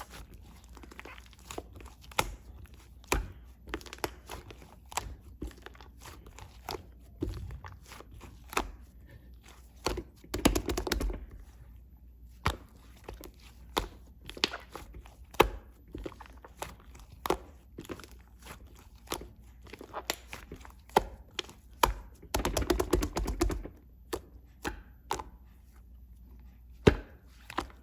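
Slime being squeezed and poked by hand, making frequent sticky clicks and pops, with two longer runs of dense crackling, about ten seconds in and again around twenty-three seconds in.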